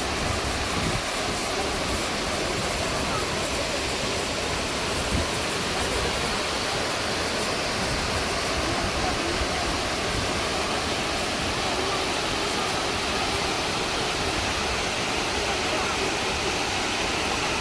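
Waterfall, a steady rush of falling water with no change in level.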